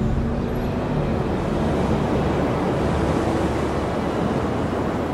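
A steady rushing noise like surf or wind, laid over soft background music with low held notes.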